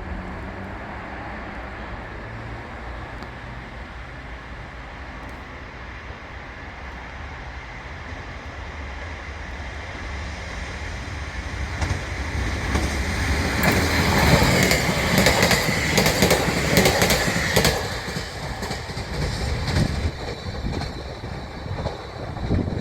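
A train running along the track: a low rumble grows louder over several seconds and peaks past the middle with quick clacks of wheels over rail joints, then eases off near the end.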